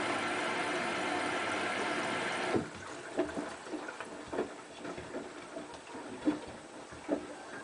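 Hotpoint Ultima WT960 washing machine running steadily, then cutting off abruptly about two and a half seconds in. After that come scattered, irregular knocks and clunks as the drum turns the heavy wet mats.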